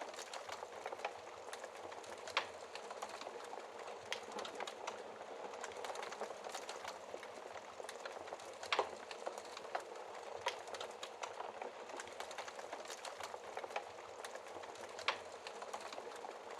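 Wood fire in a fireplace crackling: a steady hiss with many small pops and snaps, and three louder pops, about two seconds in, about halfway and near the end.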